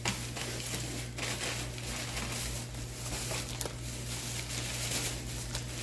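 Plastic shopping bag and packaging rustling and crinkling as items are dug out of the bag by hand, with scattered small clicks, over a steady low hum.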